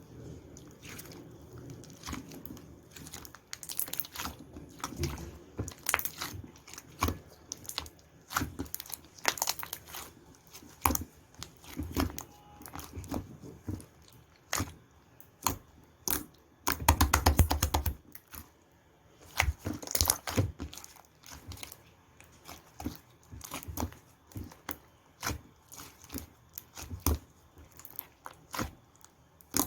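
Clay-mixed slime being squished, stretched and pressed by hand, giving irregular sharp crackles and pops, with a longer dense run of crackling a little past halfway.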